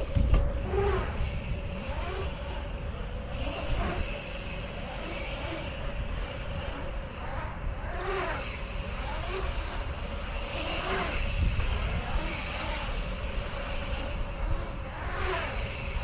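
Mountain bike tyres rolling and carving on a concrete skatepark bowl under heavy wind rumble on the action camera's microphone, with a sharp thump right at the start and a steady faint hum throughout.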